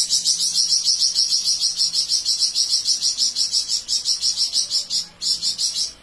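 Caged flamboyan songbird singing in full voice, a long, fast, high-pitched trill of about eight notes a second. The trill breaks off briefly near the end, then starts again.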